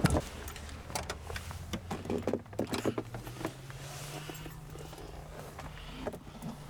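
A run of small clicks and knocks, as from switches and controls being handled in a light aircraft cockpit, then a low steady electric hum that starts about halfway in and slowly rises a little in pitch.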